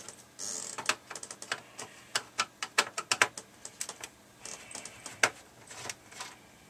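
Irregular light clicks and taps, several a second, of a screwdriver working the case screws on the plastic underside of an Amstrad CPC 464.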